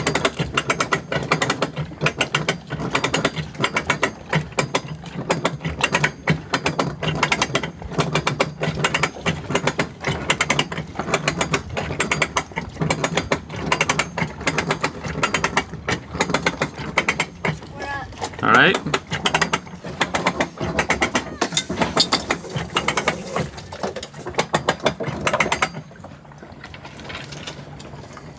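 Sailboat anchor windlass being cranked by hand to raise the anchor, its ratchet pawl clicking rapidly in uneven spurts; the clicking dies away near the end.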